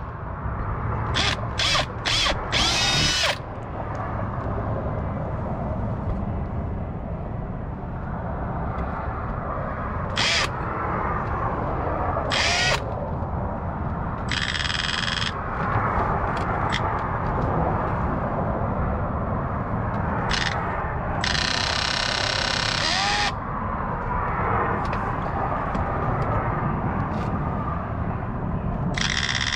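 Power drill with a 21/64-inch bit drilling holes in a car's front bumper. It runs in short bursts of about a second at a time, with a longer two-second run about two-thirds of the way through.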